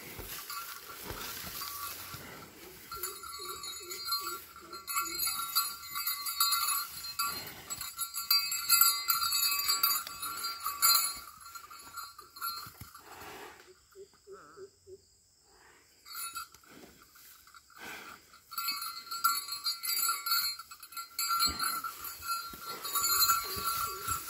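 A bull pawing and goring loose soil with hooves and horns: repeated scrapes and soft thuds of earth, with a jingling, bell-like ringing that comes and goes as it moves its head. A couple of quieter seconds a little past the middle, when it pauses.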